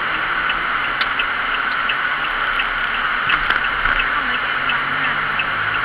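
Steady noise of a vehicle travelling, with a faint regular ticking about three times a second.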